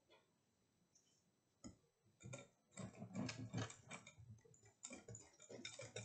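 Gloved hands kneading thick cream in a glass mixing bowl: rapid, irregular wet clicking and squishing that starts about two seconds in.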